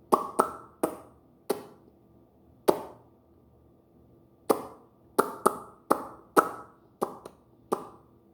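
About a dozen sharp knocks at irregular intervals, some in quick pairs, each ringing out briefly.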